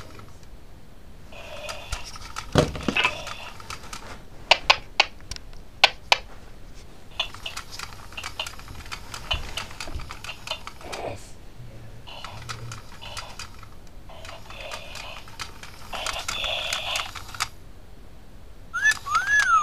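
Scattered sharp clicks and knocks, a few of them loud, among short stretches of hiss. Near the end comes a brief squeaky whistle that rises and falls.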